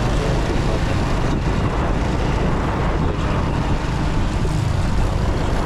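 Steady traffic and riding noise among motor scooters on a city street: an even low rumble with a rushing hiss over it, with no breaks.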